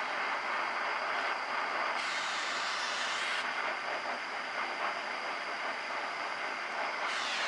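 Small metal lathe running with a steady motor whir and hiss. A brighter, higher hiss comes in about two seconds in for a second and a half, and again near the end.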